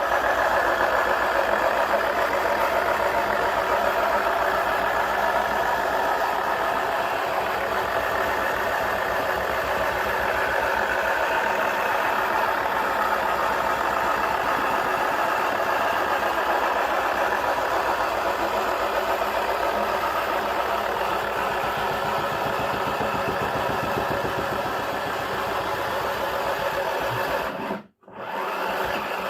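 Small electric motor of a battery-powered toy washing machine running steadily, with a fine, fast rattle. The sound cuts out for about a second near the end, then comes back a little quieter.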